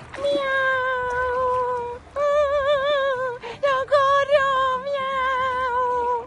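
A person's high voice playing a kitten, meowing in three long drawn-out cries; the later cries waver in pitch.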